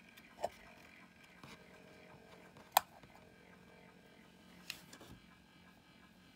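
Faint handling noise: a few small clicks and taps from handling the specimen and its display box, the sharpest a little under three seconds in, over low room hiss.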